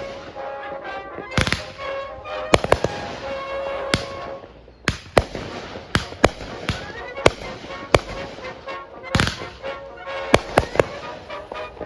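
Consumer fireworks going off in quick succession: many sharp, irregular bangs, over music with held tones.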